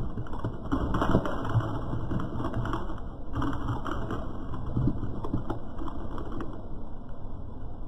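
A car tyre rolling slowly over small foil-wrapped eggs on tarmac and crushing them, with a run of small cracks and crunches that stops about six and a half seconds in.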